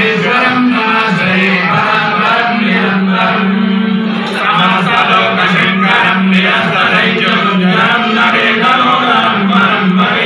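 Male priests chanting Hindu mantras in a steady, sing-song recitation, amplified through handheld microphones.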